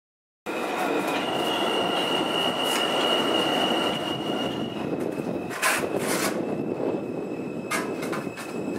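NYC subway train of R160 cars running past on the rails, a steady rumble of steel wheels on track. A high, steady wheel squeal carries through the first half, and a few sharp clacks come in the second half.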